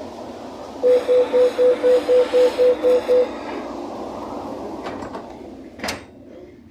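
Commuter train door-closing warning beeper: about ten quick, loud beeps of one pitch, roughly four a second, over a steady rumble of the train. A rush of hissing comes with the beeps, and a single sharp knock sounds near the end.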